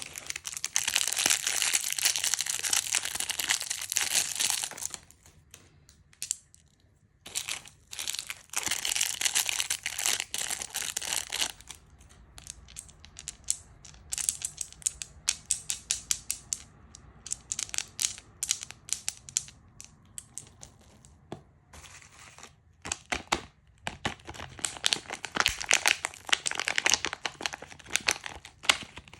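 Candy packaging crinkled and torn open by hand, in three long bouts of dense crackling. Between them come runs of separate sharp crackles and clicks.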